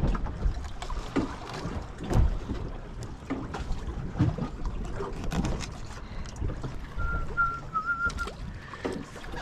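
Wind buffeting the microphone and water slapping around a drifting boat, with scattered knocks. Near the end a thin, wavering whistle sounds for about a second.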